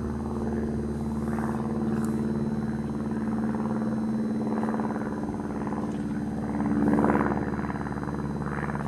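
Steady engine drone that swells briefly about seven seconds in.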